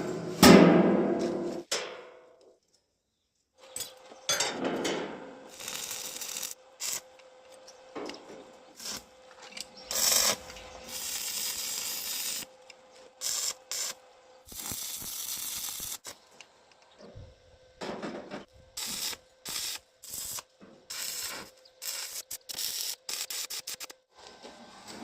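Metal workshop sounds from work on steel wheelbarrow parts: a run of short clicks, knocks and scraping bursts that start and stop abruptly, with a faint steady hum beneath.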